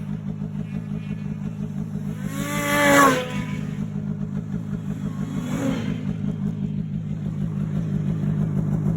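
Snowmobile engine running steadily with an even throb, with a brief rev that rises and falls in pitch about three seconds in and a fainter one about six seconds in.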